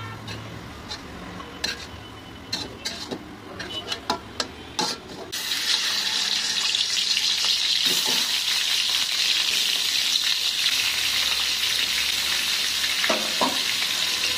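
A metal spatula scrapes and clicks against an aluminium karahi as fried onions are stirred in oil. About five seconds in, chicken pieces go into the hot oil and a loud, steady sizzle of frying starts and keeps on, with a couple of knocks near the end.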